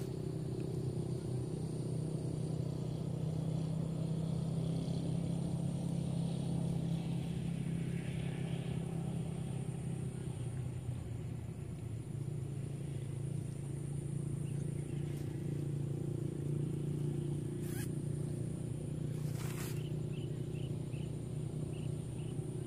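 A steady low motor drone with a thin, steady high whine above it. A couple of brief clicks come late on, then a few short high chirps near the end.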